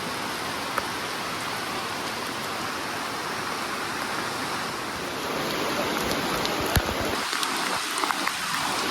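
Steady rush of flowing water, with a few light clicks.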